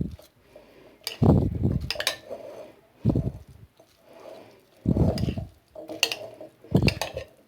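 Spoon stirring a mayonnaise-dressed seafood salad in a bowl, clinking and scraping against the bowl in about five separate strokes.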